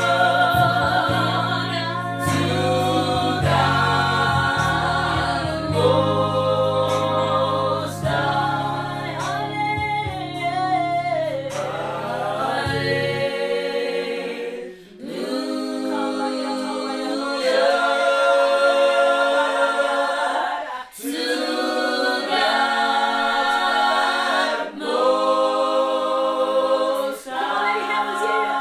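Small gospel choir of men and women singing a worship song in harmony, with a low keyboard part under the voices that drops out about halfway, leaving the voices to go on alone.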